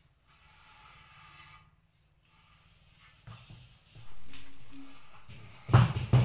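Large aluminium cooking pots being handled and wiped. A louder handling sound starts about four seconds in, and two sharp knocks come near the end.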